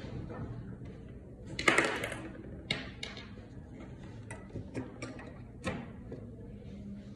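Test leads and banana plugs being handled and plugged in: a short scrape about two seconds in, then a string of sharp plastic clicks and taps as the plugs and probes are pushed into terminals and sockets, over a faint steady hum.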